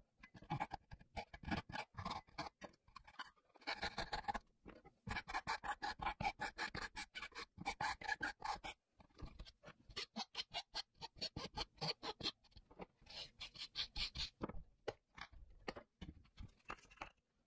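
Sped-up hand sawing and filing of thin plywood box-joint fingers: quick rasping strokes, several a second, in runs broken by short pauses.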